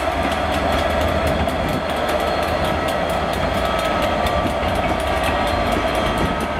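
Class 67 diesel-electric locomotive passing with its coaches, its two-stroke V12 engine giving a steady drone over a low rumble, with light clicks from the wheels on the rails.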